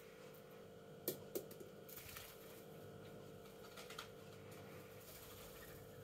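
A parrot picking at and moving its toys: a few sharp clicks and taps, the two loudest close together about a second in, then fainter ones, over a steady low hum.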